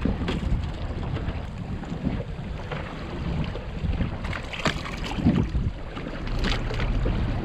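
Wind buffeting the microphone over the steady low rumble of a boat's outboard motor running at trolling speed, with a few short knocks partway through.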